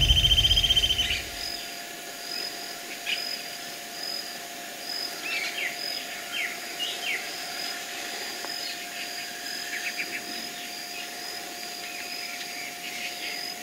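Background music fades out in the first second or so, leaving dawn ambience by a river. Birds give scattered short falling chirps over a high note repeating a little under once a second and a faint steady insect drone.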